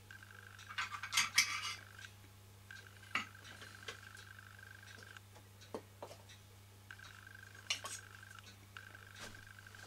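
Brass parts of a KMV vertical toy steam engine clinking and tapping as they are handled: a quick cluster of metallic clinks about a second in, then scattered single taps. A faint steady hum runs underneath.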